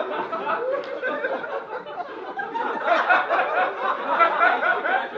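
Audience laughing, many voices at once, swelling again about three seconds in.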